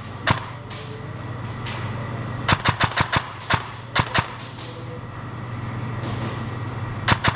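Airsoft electric guns firing in sharp, separate snaps: one early, a quick string of about four around the middle, a few single shots after, and a close pair near the end, over a steady low hum.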